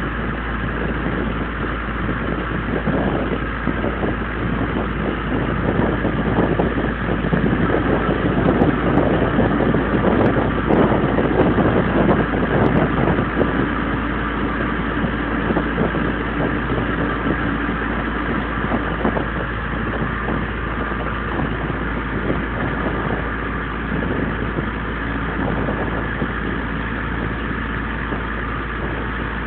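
A fishing boat's engine running steadily, growing somewhat louder for a few seconds about a third of the way in.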